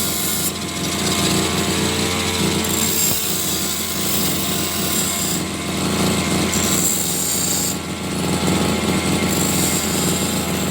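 Motor-driven power tool running at a steady speed, with a low hum and a high hiss that swells and drops every second or two as it works. It cuts off abruptly at the end.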